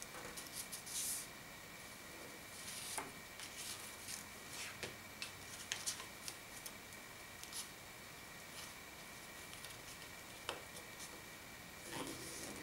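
Square origami paper being folded by hand on a tabletop: scattered soft rustles, crinkles and short scrapes as the sheet is turned and its creases are pressed flat, over a faint steady high-pitched tone.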